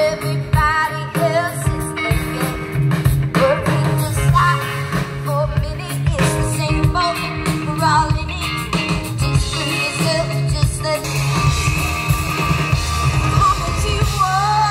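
Live rock band playing through a PA, with a lead vocal, electric guitar, bass and drums. About eleven seconds in the drums drop out and held notes ring on.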